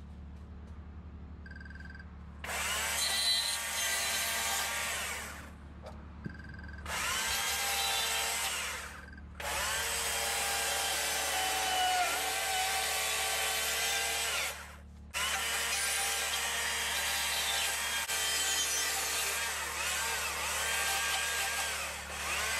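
Small-bar chainsaw revving up and cutting into wood in four bursts of a few seconds each, dropping back to a low idle in the short gaps between them. These are the short cuts made around the base of a carved block to shape a tree trunk.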